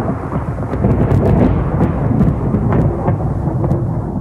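Thunder rumbling over falling rain, with sharp crackles through the middle of it.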